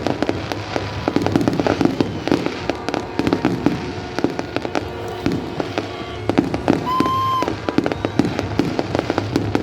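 Fireworks display: a dense, continuous barrage of bangs and crackling from bursting shells. A brief whistling tone sounds about seven seconds in.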